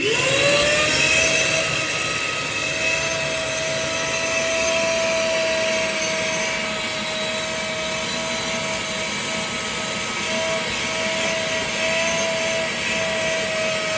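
Vacuum cleaner switched on, its motor whining up to speed within about half a second, then running steadily with a high whine over a rushing hiss of air.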